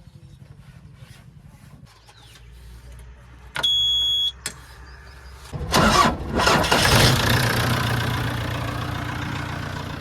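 Diesel engine of a JCB 3DX backhoe loader starting: a short high-pitched beep, then the engine catches about six seconds in with a loud burst and settles into steady running that slowly gets quieter.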